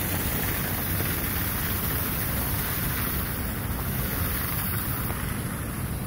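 Steady rushing of water from the Düden waterfall, an even unbroken roar.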